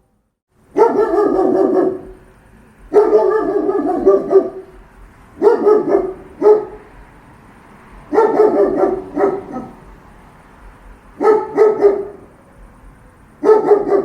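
German shepherd guard dog barking in six bouts of quick, deep, rough barks, about two to three seconds apart, starting about a second in.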